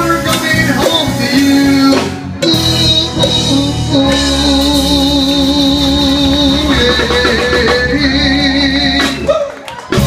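Live rock band playing the closing bars of a song: a long held note with a wavering vibrato over sustained guitar and drums, then the music stops about nine and a half seconds in.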